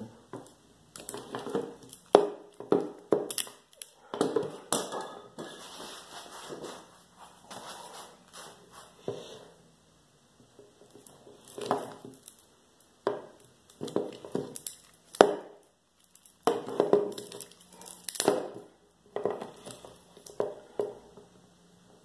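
Old, dull wire cutters crunching into the steel strands of a Kryptonite cable bike lock: irregular bursts of crackling and snapping as the jaws are squeezed, with short pauses between squeezes. The cable is being cut through slowly, a few strands at a time.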